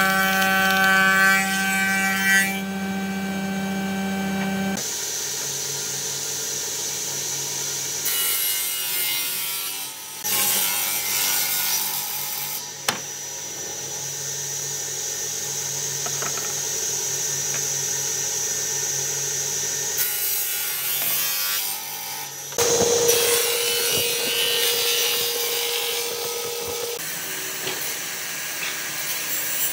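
Woodworking power machines running and cutting wood in turn. It opens with a steady hum from a machine with a power feeder, then saw blades cut through boards in several separate passes, and a handheld circular saw cuts a wooden panel near the end.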